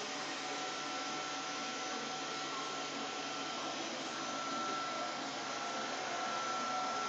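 Household vacuum cleaner running steadily: an even rush of air with a thin, steady high whine from the motor.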